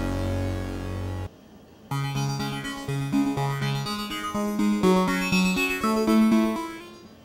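Behringer DeepMind 12 analogue polyphonic synthesizer: a thick, low sustained patch cuts off about a second in, then after a short pause a new patch plays a short melody of separate notes stepping upward with a keyboard-like tone, fading out near the end.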